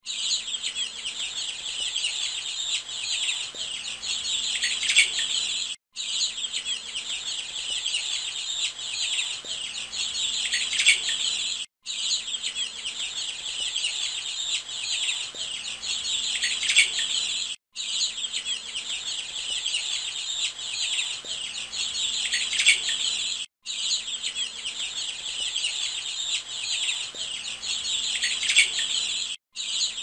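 Many baby chicks peeping together, a dense chorus of overlapping high-pitched cheeps. The sound cuts out for a moment about every six seconds as the same few seconds repeat.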